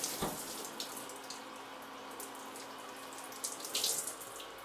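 Shower running, water spraying and splashing steadily, with a brief knock just after the start and a louder splash near the end.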